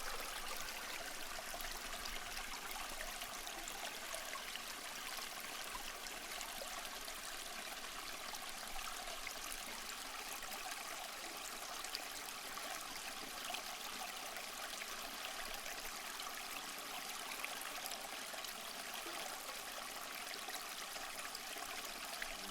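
A river flowing steadily, an even rush of water with no other event standing out.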